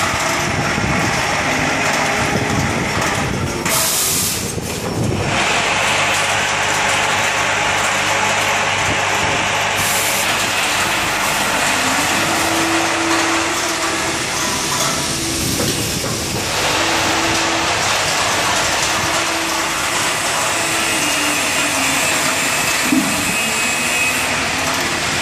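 Vibratory bowl feeders of an automatic hardware packing machine running, white plastic pipe fittings rattling in the stainless steel bowls as they are shaken along the tracks. The rattle is steady and dense, with a steady low hum beneath it.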